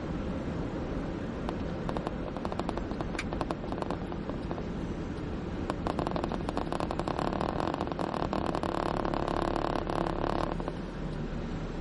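Road noise of a car driving, heard from inside the cabin, with many small clicks and rattles. A louder rushing noise builds from about halfway through and dies away near the end as the car slows to a stop at a red light.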